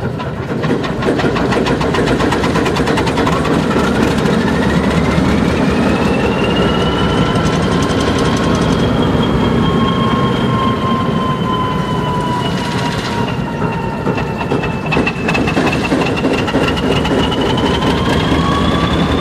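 Alco S2 switcher's turbocharged six-cylinder 539T diesel running rough just after a cold start. Its sound builds about half a second in, and a high whine rises in pitch over a few seconds, then holds and wavers. This rough cold running is typical of the 539T until the engine warms up.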